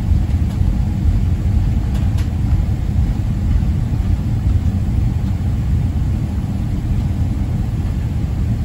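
Steady low rumble inside the cabin of a Boeing 777-300ER rolling along the taxiway with its engines running.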